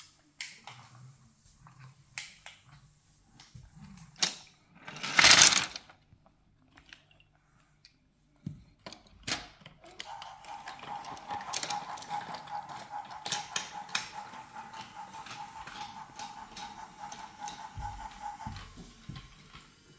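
Scattered clicks and knocks of plastic toys being handled, with one louder noisy burst about five seconds in. From about halfway a small battery toy motor whirs steadily with a rapid clicking gear rattle, stopping shortly before the end.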